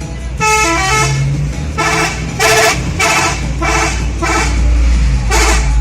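Telolet multi-tone musical horn on a Toyota Kijang being played: a short stepped run of notes, then a string of about six short chord-like blasts, over a low rumble.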